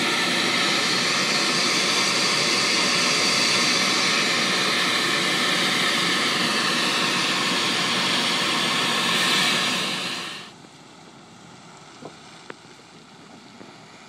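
Steam vent (fumarole) hissing loudly and steadily, cutting off suddenly about ten seconds in. After that only a much quieter hiss remains, with two faint clicks.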